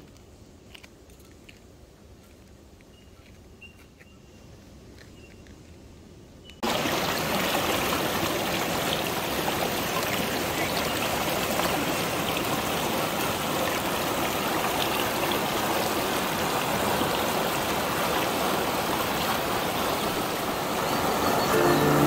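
Quiet outdoor background with a few faint ticks for the first several seconds, then, about seven seconds in, a sudden change to the loud, steady rush of fast river water churning through rapids and pouring over a fallen log.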